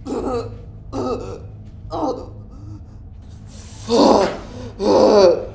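A man's acted gasps and whimpers of pain: three short strained breaths about a second apart, then two longer, louder gasping cries near the end.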